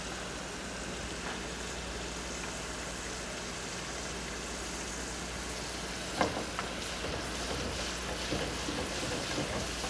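Carrot and sweet potato cubes deep-frying in hot oil in an electric deep fryer's wire basket: a steady sizzle, with a brief knock about six seconds in.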